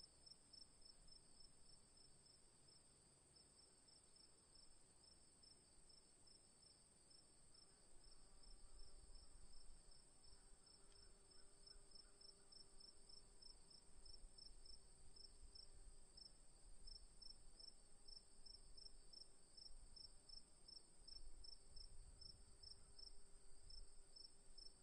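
Crickets chirping faintly: a steady high trill with a second rhythm of evenly repeated chirps, a few a second. A faint low rumble sits underneath from about a third of the way in.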